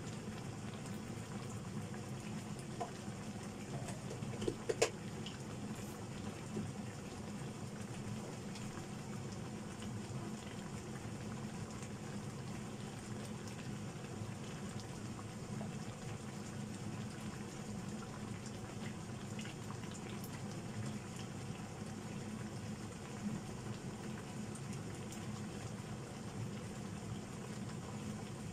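Chicken pieces cooking in a nonstick wok, their juices bubbling in a steady simmer. A few light clicks come about four to five seconds in.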